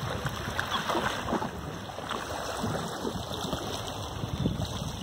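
Wind buffeting the microphone over small waves lapping on the lakeshore: a steady, uneven noise that is heaviest in the low rumble.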